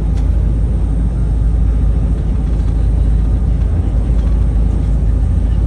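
Speed boat's engines and hull running steadily across the sea, a loud, even low rumble heard from inside the cabin.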